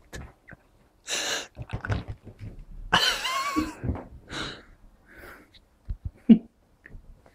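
Short, noisy bursts of a person's breath close to the microphone, the loudest about a second in and about three seconds in, with a couple of short low thumps about six seconds in.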